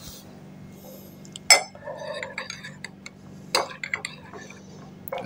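A spoon stirring in a cup, clinking against its side now and then, with two sharper clinks about a second and a half and three and a half seconds in.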